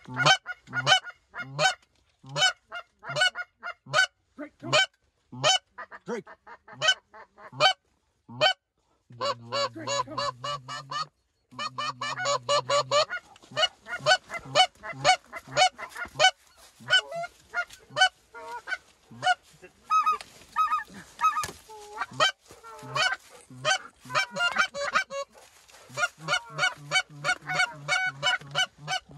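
Greater white-fronted geese (specklebellies) calling as a flock flies over: a near-continuous run of short, repeated calls, with brief pauses about 8 and 11 seconds in.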